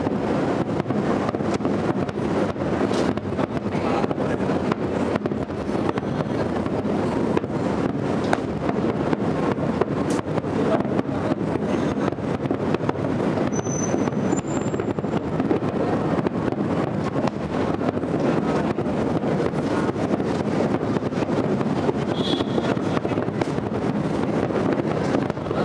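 Aerial fireworks shells bursting in a rapid, continuous barrage during a finale, the many bangs overlapping into one unbroken din.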